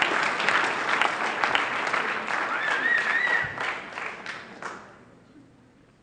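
Audience applauding: many hands clapping together, with a short rising-and-falling high call from someone in the crowd about three seconds in. The clapping dies away about five seconds in.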